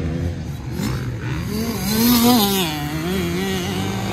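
Gas Gas 65 two-stroke dirt bike engine revving as it is ridden around the track. Its pitch wavers up and down, climbs to its highest and loudest about halfway through, then settles lower.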